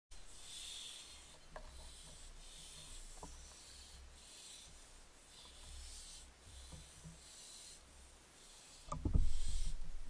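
Barn owls making rasping, hissing 'snore' calls, short bursts repeated about once a second. About nine seconds in comes a louder thump and scuffle as an owl moves out onto the branch beside the nest box.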